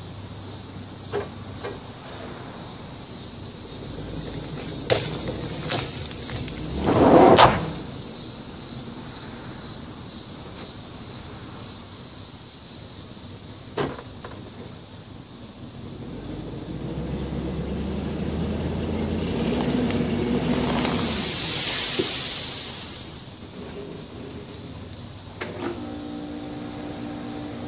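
Chevrolet Suburban's engine pulling under load as the strap tightens and the small tree is dragged out of the ground. Its sound builds over several seconds and then drops away. Before that come a few knocks and a short loud burst about seven seconds in.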